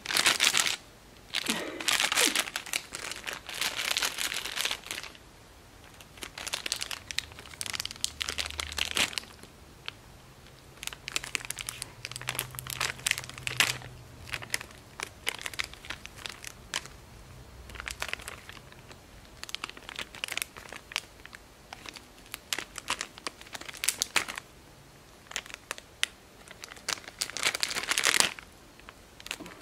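A squirrel monkey handling and tugging at the plastic wrapper of a McDonald's toy, trying to open it: bursts of crinkling and rustling that come and go with short pauses.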